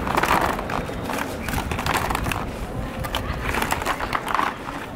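Mussel shells clattering and clicking against each other and against plastic as they are tipped out of a plastic bucket onto a plastic tray. There are denser rushes of shells at the start and again about four seconds in.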